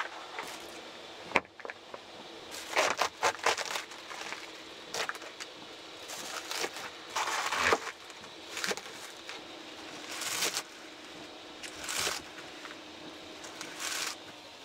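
Kitchen prep on a wooden counter: a thin plastic cutting sheet crinkling as it is pulled from its box and laid on the board, then a kitchen knife cutting through a cabbage wedge and chopping chives, a run of short crunching cuts and knocks on the board. A faint steady hum runs underneath.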